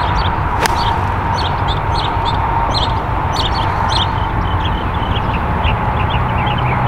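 A golf ball struck by an 8-iron: one sharp click about half a second in. After it comes a steady background hum with many small birds chirping.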